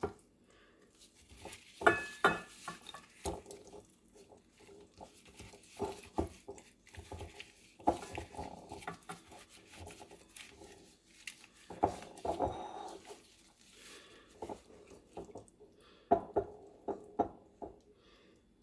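Kitchen utensils knocking and scraping against cookware in several short bursts a few seconds apart.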